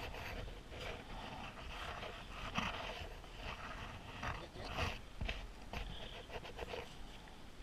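Rustling and scraping of a padded fabric camera bag handled with gloved hands, the camera inside being moved about, in a run of short uneven scuffs.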